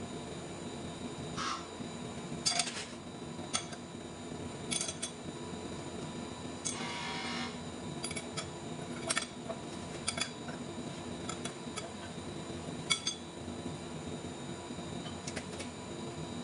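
Steel wrenches clinking and tapping on the clamp bolts of a large lathe faceplate as the clamps holding a heavy flange are tightened. The clinks come one at a time, a dozen or so scattered sharp ones, with a short rasp about seven seconds in, over a steady workshop hum.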